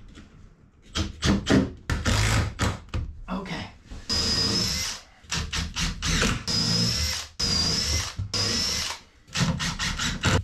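Cordless impact driver sinking 4-inch deck screws into a mahogany block: a few short trigger bursts, then a longer run about four seconds in, with a high whine that stops and restarts several times as the screw is driven home.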